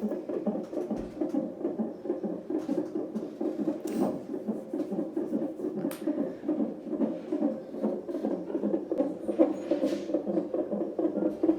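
Fetal heartbeat picked up by a CTG Doppler ultrasound transducer: a rapid, steady run of pulsing beats.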